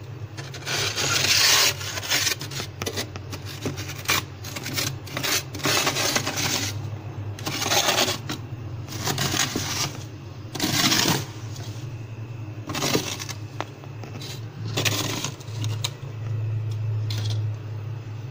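Clear plastic ruler scraping thick frost off the inside of a freezer, in a run of irregular scraping strokes, each up to about a second long. A steady low hum runs beneath.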